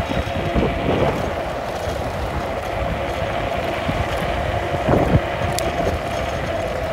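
Wind rushing over the microphone and tyre noise from a 2500-watt electric scooter riding along, with a steady whine underneath. A few knocks come as it rolls over bumps, the clearest about five seconds in.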